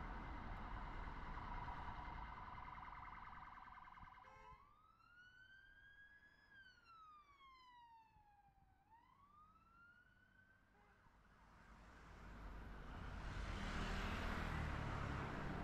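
Emergency-vehicle siren wailing faintly, its pitch sliding up, down and up again over about six seconds, over low street-traffic noise. Near the end a car passes close by.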